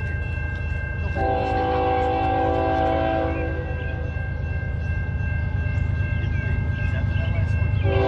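An approaching diesel freight train's air horn sounds one long chord blast starting about a second in and lasting a little over two seconds, then starts another right at the end, over the steady low rumble of the locomotives' engines.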